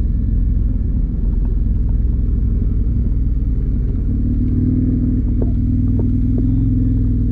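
KTM motorcycle engine running steadily under way, a low drone that settles into a steadier, stronger note about four seconds in, with a few light ticks near the end.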